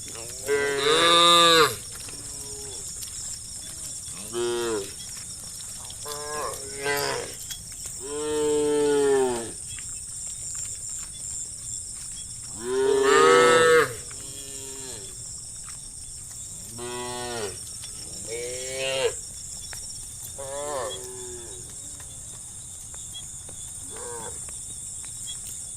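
Several cows mooing over and over, one long call after another, some loud and close and some fainter. The loudest come about a second in, at around eight seconds and at around thirteen seconds.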